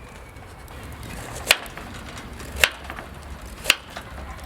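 Three sharp chopping strikes on wood, evenly spaced about a second apart.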